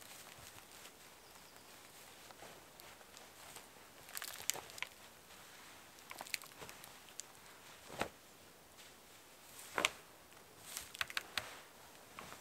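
Faint rustling of a Ticket to the Moon camping hammock's fabric and a person's movement as he climbs in and settles, with scattered sharp clicks and crackles, the loudest about a third of the way in and again near the end.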